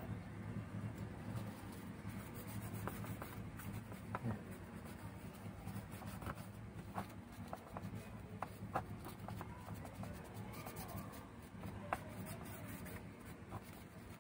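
A small wipe rubbing over the back of a GTX 1050 Ti graphics card's circuit board: soft scratchy strokes with a few light clicks, over a low steady hum.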